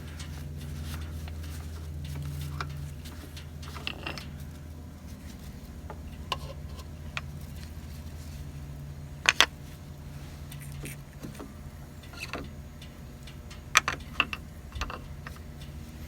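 Scattered sharp clicks and clinks of hand tools and metal fittings being handled, loudest about 9 and 14 seconds in, over a steady low hum.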